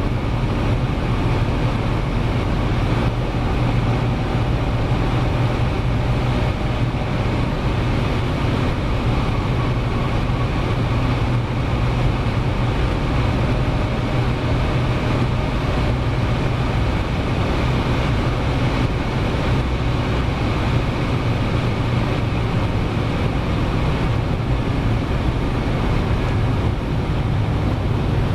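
Supercharged V10 of a G-Power BMW M5 Touring driving at a steady speed: an even engine drone with tyre and wind noise, no change in revs.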